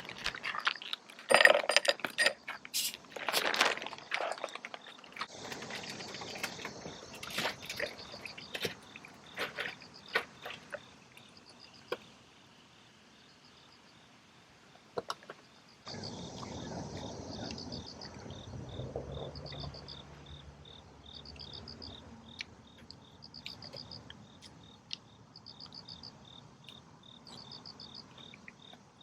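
Crickets chirping in short high-pitched pulses, roughly one a second. The first few seconds hold a run of knocks and clatter.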